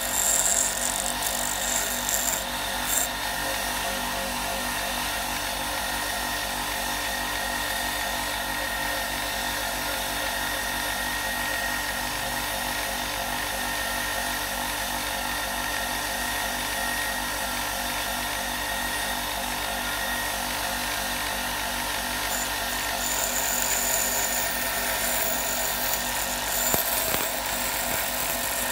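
Small electric power-tool motor running at a steady speed, with a few brief higher-pitched noises near the start and again near the end.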